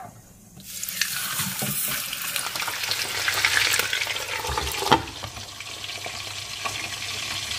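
Hot oil sizzling loudly in a stainless steel frying pan as a whole flattened chicken fries in it. About five seconds in, a glass lid knocks onto the pan, and the sizzle goes on more quietly under it.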